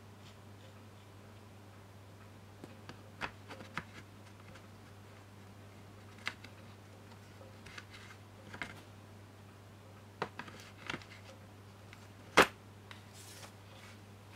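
Metal tool pieces being set into the moulded slots of a hard plastic tool case: about ten irregular sharp clicks and knocks, the loudest near the end, over a faint steady hum.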